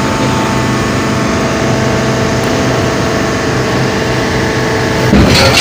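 Heavy machinery running with a steady hum as the mill's hydraulic tipping platform lifts a sugarcane-laden tractor trolley to dump it. About five seconds in, a short, loud rushing clatter breaks over it.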